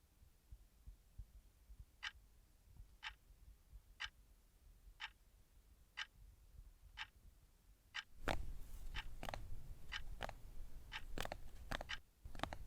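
A clock ticking steadily, once a second. From about eight seconds in, a low rumble and irregular clicks and knocks join the ticking.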